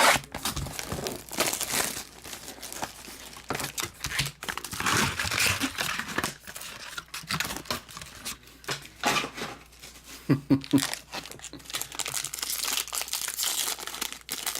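Plastic wrapping on trading-card packaging crinkling and tearing as it is ripped open and handled, with irregular crackles throughout.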